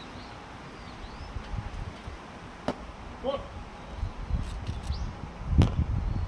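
A rubber baseball popping into the catcher's mitt once, about three seconds in, over wind rumbling on the microphone. A louder sharp knock comes near the end.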